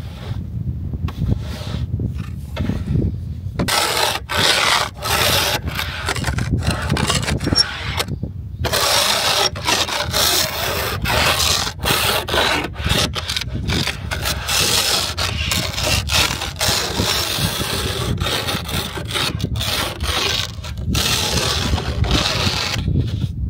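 Snow being scraped off a van's sunroof in quick, repeated strokes, starting about four seconds in and stopping near the end, over a steady low rumble.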